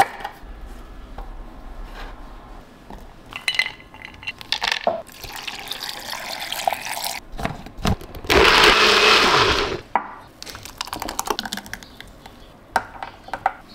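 NutriBullet personal blender running for about a second and a half, then winding down with a falling whir. Before and after it come clicks and knocks of food pieces and the plastic blender cup being handled.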